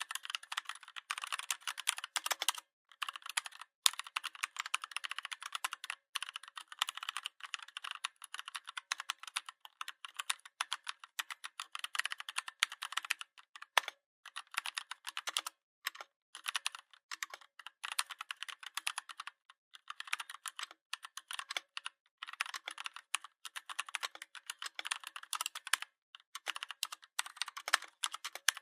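Redragon 61-key mechanical keyboard being typed on: a fast, continuous clatter of key clicks, broken by a few brief pauses.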